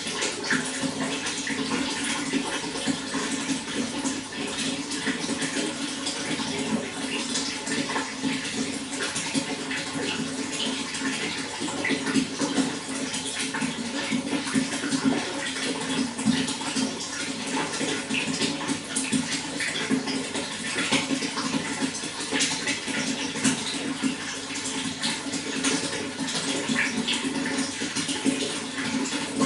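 Running water flowing steadily, a continuous even rush with many small splashes throughout.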